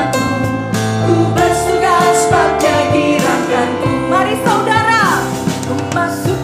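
Contemporary worship song: a singer carried by a band with guitar, the voice sliding down in a falling run about five seconds in.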